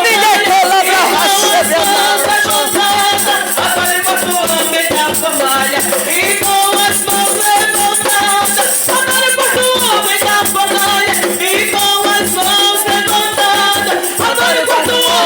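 Music with singing voices over a rattle shaken in a fast, steady rhythm.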